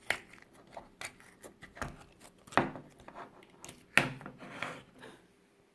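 Clear slime being worked out of its plastic package by hand: irregular clicks and squelches, loudest about two and a half and four seconds in, dying away near the end.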